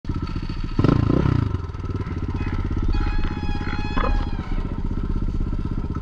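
Avantis 250 enduro motorcycle engine idling close by with a steady, even beat, with a brief louder burst about a second in.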